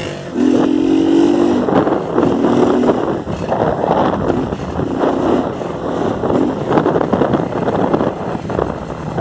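Motorcycle with a de-baffled exhaust pulling hard, its engine note climbing through three short pulls, with wind and road rush between them.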